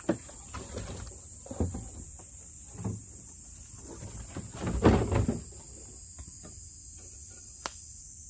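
Split firewood logs being handled and set down on a woodpile: a handful of irregular wooden knocks and clunks, the loudest cluster about five seconds in and a sharp click near the end.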